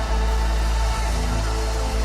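Music: a deep, sustained bass note under held chords, with no singing.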